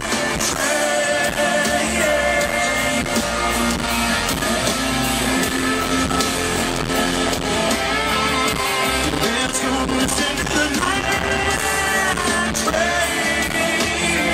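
Live country-rock band playing, guitars to the fore, with singing, heard from within the crowd.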